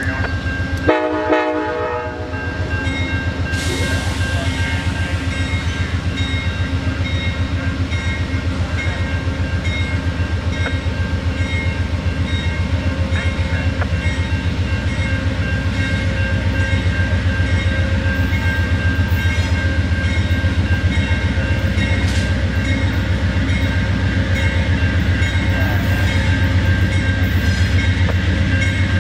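Diesel locomotive of an Amtrak passenger train, a P42DC, running with a steady low drone as it approaches slowly, with steady higher tones over it. A brief sharp sound comes about a second in.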